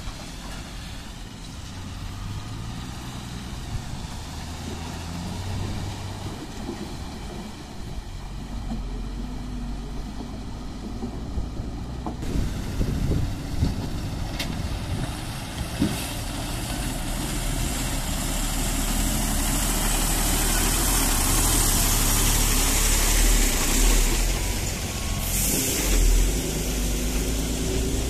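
Heavy diesel lorries running slowly over a broken, potholed road, their engines a steady low drone with tyre and road noise that grows louder as they come closer. A short air hiss, typical of a truck's air brakes, near the end.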